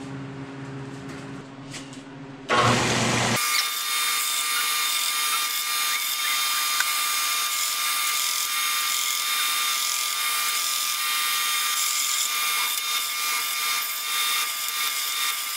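Belt sander running with a metal plate held against the belt to grind its edges: a loud, steady grinding hiss with a constant whine, starting suddenly about two and a half seconds in.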